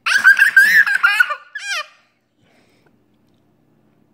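A young child laughing, high-pitched, for about two seconds.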